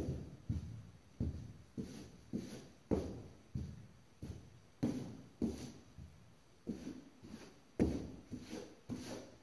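A steady series of dull thuds, about one every two thirds of a second, each trailing off in a short ringing echo.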